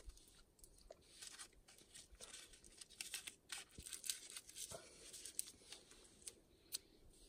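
Faint, irregular crackling and rustling of a crisp sheet of nori seaweed being folded and rolled by hand around sushi rice and fillings into a hand roll.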